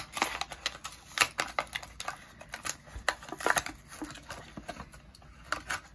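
A die-cast toy car's plastic blister pack and card backing being pulled open by hand: irregular sharp crackles, snaps and tearing, thinning out toward the end.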